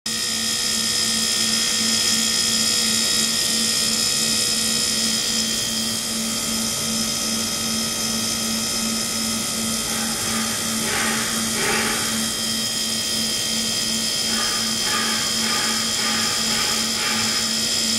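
Ultrasonic cleaning tank running: a steady high-pitched whine and hiss from the transducers driving the water, over a low pulsing hum. Two short bursts come about two-thirds of the way through, and a run of about five more follows near the end.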